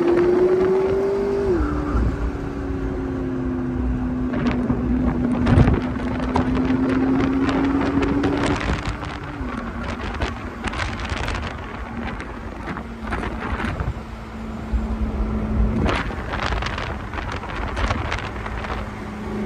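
McLaren twin-turbo V8 cruising with the roof open, its steady engine note stepping down in pitch about a second and a half in and again about halfway through. Wind buffets the microphone throughout.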